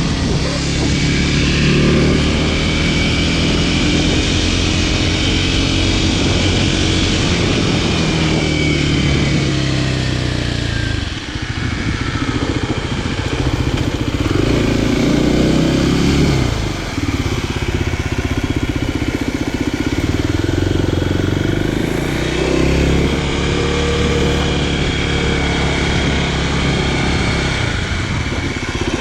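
Kawasaki KLX300SM supermoto's single-cylinder four-stroke engine running as the bike is ridden, its pitch rising and falling with the throttle. The engine briefly drops off about eleven seconds in and again about seventeen seconds in, then pulls up again.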